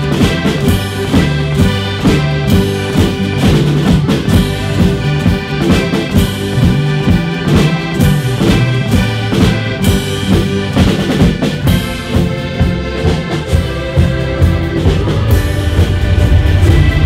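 Shanty-choir band playing a song: accordion chords with acoustic guitar, and a drum and cymbals keeping a steady beat of about two strokes a second. The music gets louder near the end.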